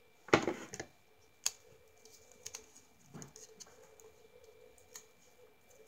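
Paper and card being handled and slid about on a LEGO baseplate: a brief rustle about half a second in, then scattered small clicks and taps.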